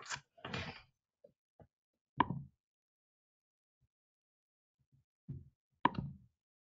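A few short, sharp knocks heard over a conference-call line, with dead silence between them.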